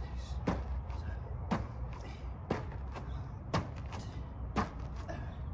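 A person's feet landing on gravel during repeated in-place jumps, one sharp landing about once a second.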